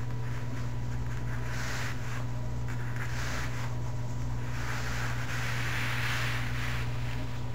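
Terry-cloth bath towel rustling and brushing under hands as it is rolled tightly, in a few soft swells, the longest about five to six and a half seconds in, over a steady low hum.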